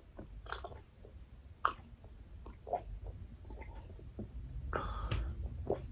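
Close-up mouth sounds of a person chewing fried fish: scattered wet clicks and smacks, with a louder breathy sound about five seconds in.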